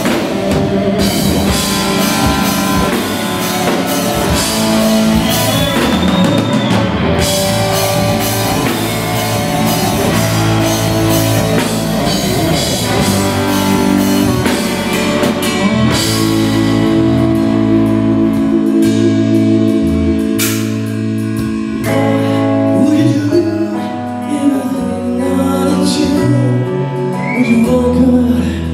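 Live rock band playing electric guitar, bass guitar and drum kit. About halfway through the cymbals thin out, leaving long held notes.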